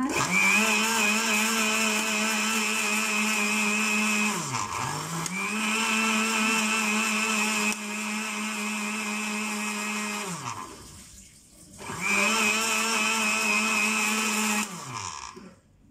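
Countertop electric blender running in three bursts of a few seconds each, blending a thick green shake of saluyot (jute) leaves, banana and milk. Its steady motor hum winds down in pitch each time it is switched off.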